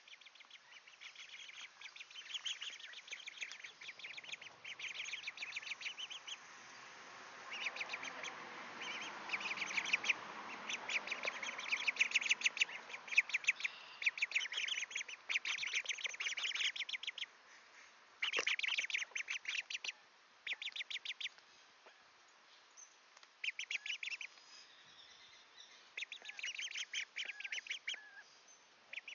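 Young mallard ducklings peeping in quick trains of high notes, in bouts of a second or two with short pauses between. A single short knock comes about two-thirds of the way through.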